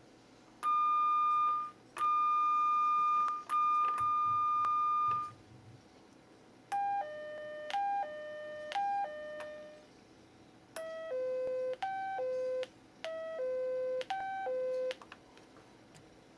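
Homemade microcontroller sound-effect generator for a model railway playing synthesized train-cab signal tones. First come three long, steady, high-pitched beeps. Then a falling two-note chime sounds three times, and near the end a four-note chime figure plays twice.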